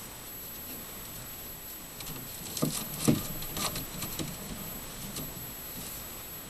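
A few light knocks and taps with faint rustling from plastic window covering being handled and pushed into place in a chicken coop window, the loudest taps about two and a half to three and a half seconds in.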